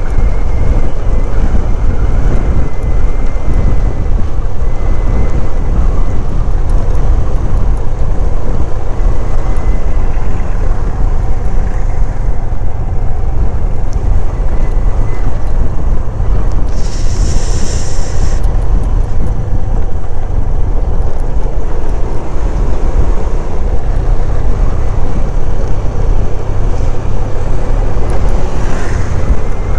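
Wind buffeting the camera microphone of a SYM 110 motorcycle under way, with engine and road noise beneath it. The noise is loud and steady, with a short hiss a little past halfway.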